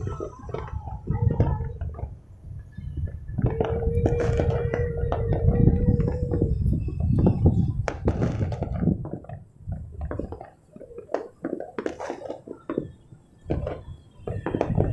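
Distant fireworks going off all over the city: irregular bangs and crackles over a low rumble of booms. A single steady tone is held for about three seconds in the middle.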